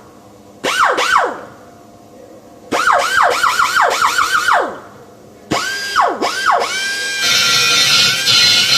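Swooping, siren-like tones that rise quickly and fall away, first singly with short gaps, then in a quick run of about five a second, then settling near the end into a held note as music comes in.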